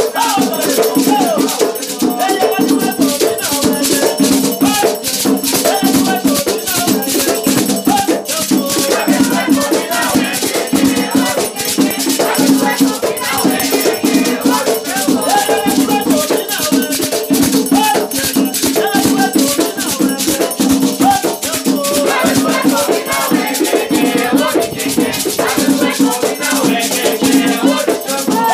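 Batuque ritual music: rattles shaken in a fast, steady rhythm over drumming, with voices singing.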